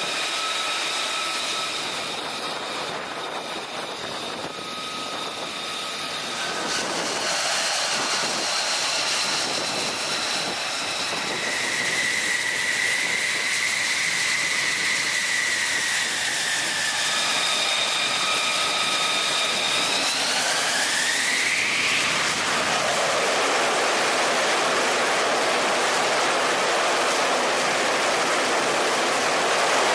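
F-35C Lightning II jet engine running on the carrier deck with a steady high turbine whine. About 20 seconds in the whine rises sharply as the engine spools up, and a louder, steady jet noise follows.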